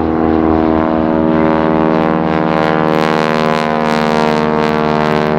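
De Havilland Canada Beaver's nine-cylinder Pratt & Whitney Wasp Junior radial engine and propeller running steadily as the aircraft flies overhead.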